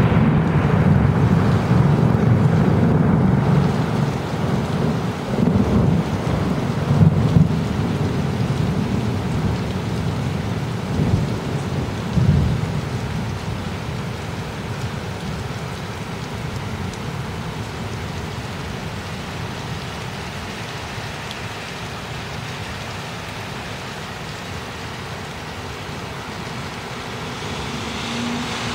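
Thunder rumbling, loud at the start with several rolls and cracks over the first dozen seconds, then dying away. A steady hiss of rain remains once the thunder has faded.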